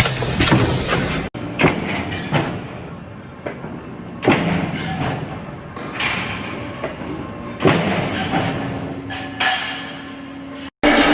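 Machinery working, with a heavy thud about every two seconds.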